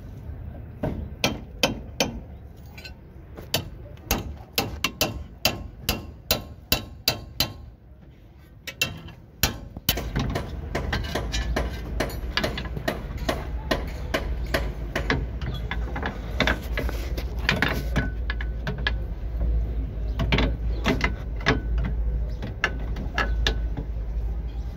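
Hand tools on a car's front suspension: a run of sharp metal knocks, about two a second. About ten seconds in, this gives way to denser clicking and tapping over a low rumble.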